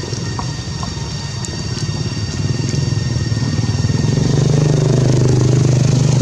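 An engine running, growing louder over the first four seconds or so and then holding steady.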